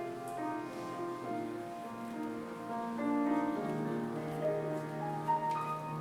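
Instrumental keyboard music, a slow melody of held notes.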